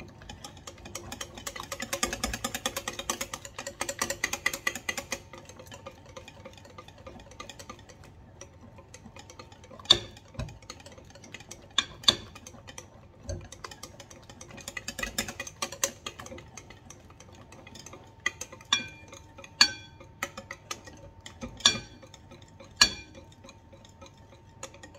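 Wire whisk beating a thin cake batter in a glass bowl. For the first few seconds it goes in fast strokes, a quick run of wet clicks. After that the stirring is slower, with single sharp clinks of the wires against the glass a second or two apart.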